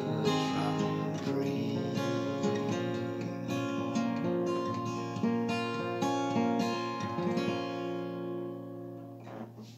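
Acoustic guitar played alone, the closing chords of a slow folk ballad strummed and picked, growing steadily quieter as the last chord rings out.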